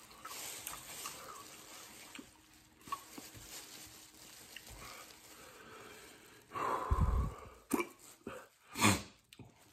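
A man breathing hard while eating fiery-hot chicken wings, with quieter eating noises, then a few loud, sharp breaths near the end: pained breathing from the chilli heat.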